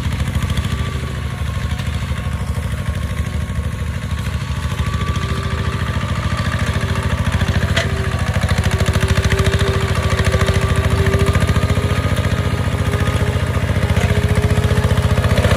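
Kubota RT140 single-cylinder diesel on a two-wheel walking tractor, running steadily with a fast even chug while it pulls a plough through dry soil. It gets slightly louder partway through.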